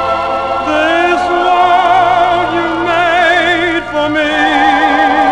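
A 78 rpm record playing orchestral music: held melody notes that waver in pitch over a low bass line, with no singing.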